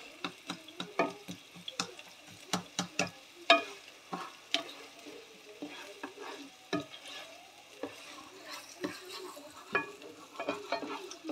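A black slotted nylon spoon stirring and scraping chopped onion and garlic around a nonstick pan, with irregular clicks and knocks against the pan over a light sizzle of the aromatics frying in oil.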